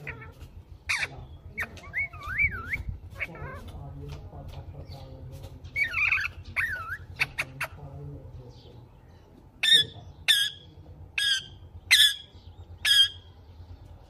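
Parakeets calling: short chirps and wavy, warbling whistles, then from about ten seconds in five loud, harsh squawks, one every second or so.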